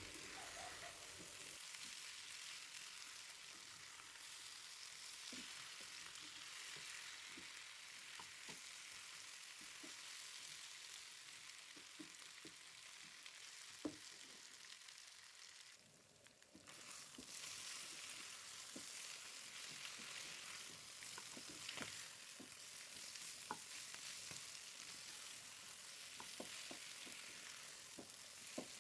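Beef curry frying in a covered pan over a low flame: a faint, steady sizzle with scattered small pops and clicks. The sizzle drops out briefly about sixteen seconds in.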